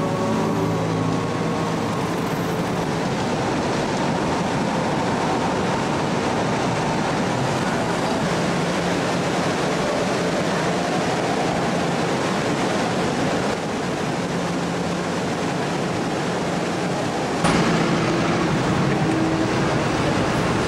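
Steady rumble and rush of a ferry under way, with faint steady tones under the noise. It gets suddenly louder about three-quarters of the way through.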